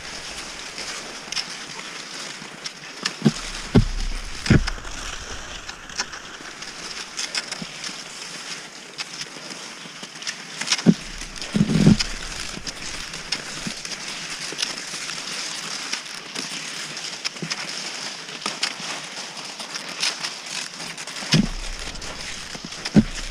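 Cross-country skis sliding and scraping over snow in a steady hiss, with scattered clicks from ski poles being planted and a few dull thumps.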